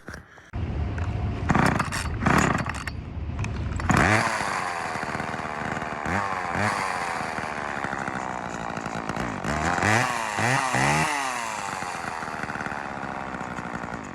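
Two-stroke chainsaw engine starting and running. It idles low from about half a second in, then revs up at about four seconds and rises and falls in pitch several times before cutting off near the end. It runs fine.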